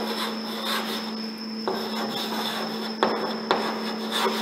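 Chalk scratching across a chalkboard in short strokes as words are written, with a few sharp taps of the chalk against the board.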